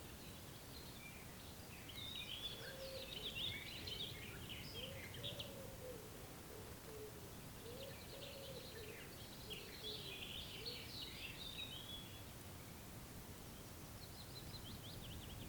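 Songbirds singing in two long bursts of quick, high twittering phrases, with a shorter burst near the end, over a steady low outdoor hiss. A run of short, low, curved notes sounds under the song through the middle.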